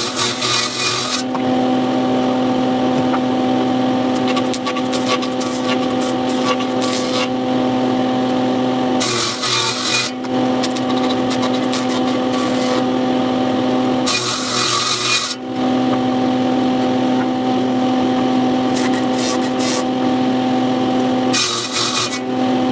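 A woodworking power tool running steadily with a constant hum, working wood. The hum breaks off four times for a second or so, each time replaced by harsh scraping, cutting noise.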